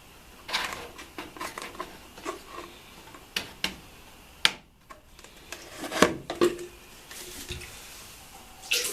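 Handling noises at a washing machine: plastic clicks, knocks and rubbing as parts are worked, likely while getting at the drain to let out the residual water. There is a sharp knock about four and a half seconds in, the loudest knock about six seconds in, and another clatter near the end.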